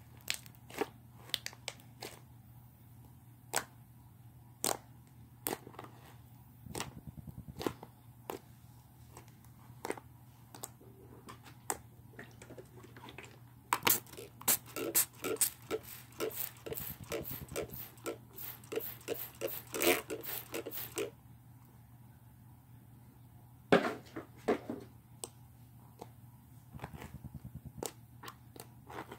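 Slime being mixed and squished by hand: irregular sticky clicks and pops, coming thick and fast for several seconds in the middle, with another loud burst later.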